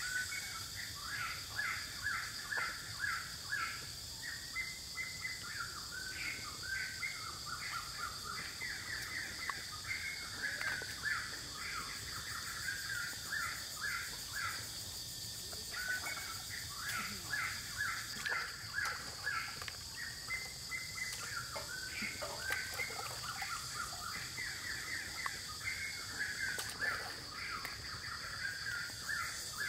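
Birds chirping continuously, with many short calls repeating in quick succession, over a steady high-pitched hum.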